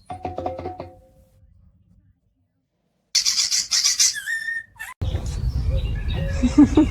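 A parrot whistling and chirping in quick high notes, ending with a whistle that glides down in pitch. A short lower call comes in the first second, followed by a gap of silence.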